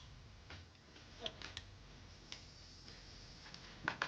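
Faint, scattered light clicks and taps, about half a dozen, with a louder pair near the end.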